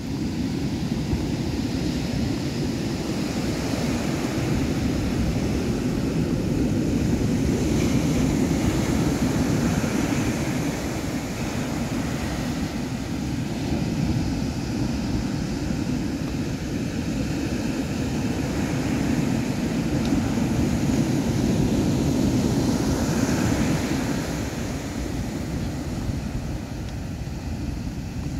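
Ocean surf breaking and washing up the beach, with wind buffeting the microphone. The rushing noise swells and eases over several seconds at a time.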